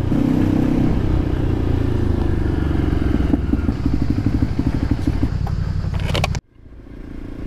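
Motorcycle engine running under way, with a rhythmic pulsing in the middle stretch. A few sharp clicks come about six seconds in, then the sound cuts off abruptly and fades back up.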